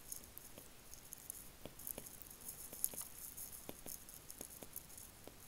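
Faint, irregular ticking and light scratching of a stylus tip on a tablet's glass screen during handwriting.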